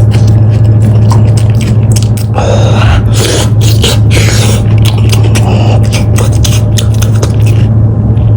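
Close-miked eating sounds: lamb chop meat being gnawed and chewed off the bone, with many wet clicks, crackles and scraping noises, over a loud steady low hum.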